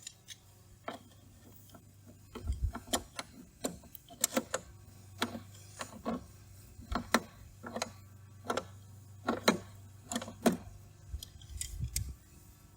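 Channel-lock pliers gripping and snugging the threaded ring on a tractor's fuel filter bowl: irregular clicks and taps of metal jaws on the ring, with a faint low hum underneath.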